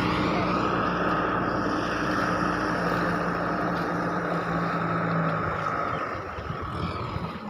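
An engine running at a steady pitch, its hum cutting out about five seconds in.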